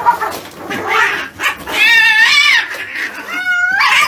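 Domestic cats caterwauling: a long, wavering yowl about two seconds in, then a second, shorter yowl near the end.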